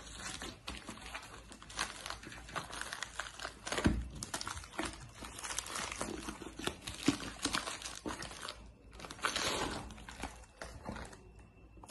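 Plastic bubble mailer being handled and torn open: irregular crinkling and rustling of the plastic with small crackles, and a dull thump about four seconds in.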